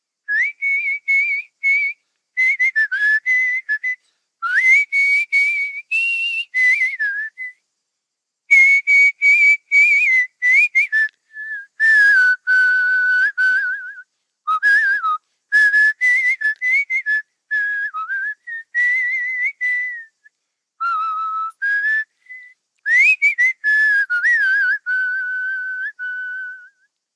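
A man whistling a slow melody with lips, in phrases of held and gliding notes with short breaks between them.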